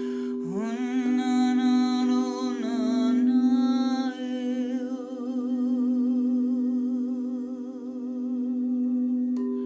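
Crystal singing bowls ringing with steady, sustained tones while a voice hums a long note over them. The voice slides up into the note about half a second in and holds it at the bowls' pitch, growing softer after about four and a half seconds.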